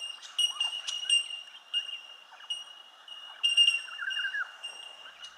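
Birds calling in a natural chorus: repeated clear, ringing notes over a steady high tone, with quick chirps lower down. The ringing is loudest about three and a half seconds in.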